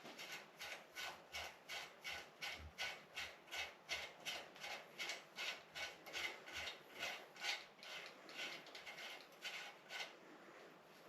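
Rhythmic rubbing or scraping strokes, about three a second, from hand work on the bicycle's parts during the strip-down; they stop about ten seconds in.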